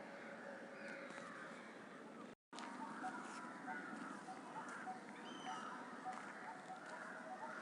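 Several wild birds calling in a background chorus, with one short, high note repeated every half second or so. All sound drops out for a moment about two seconds in.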